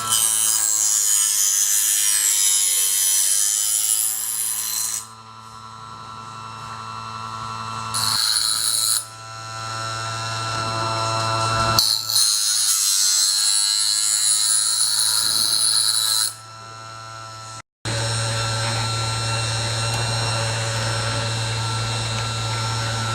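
Wipro PMF-04 multifunction sharpening machine running with a steady motor hum, broken by several stretches of a few seconds of loud high grinding hiss as a tool is held against the wheel. It cuts out briefly near the end, then runs on steadily.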